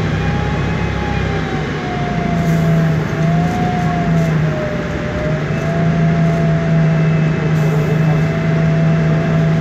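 Inside a MAN Lion's Classic city bus standing at a stop: its MAN E2876 CNG engine idling with a steady low hum, and a wavering mid-pitched whine over it.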